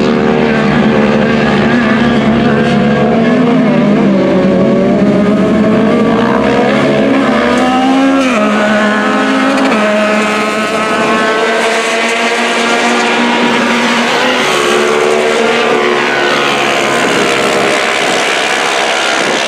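Engines of several side-by-side UTV race cars revving as they race around the track, with overlapping engine notes rising and falling in pitch.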